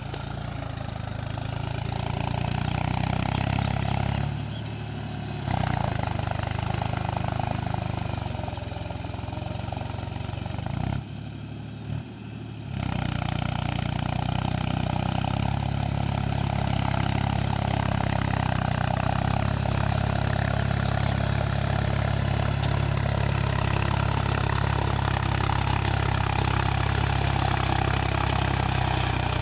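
Mahindra 475 diesel tractor engine running steadily while puddling with a cultivator. The sound dips briefly twice, about four and eleven seconds in.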